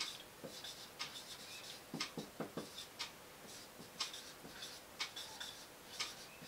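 Marker pen writing on a whiteboard in short, faint strokes, with a clock ticking once a second.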